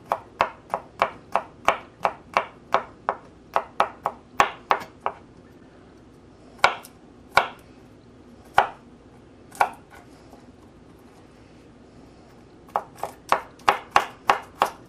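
Kitchen knife chopping garlic cloves on a plastic cutting board: quick sharp strikes of the blade on the board, about three a second, thinning midway to a few single chops, then a pause of a couple of seconds before rapid chopping resumes near the end.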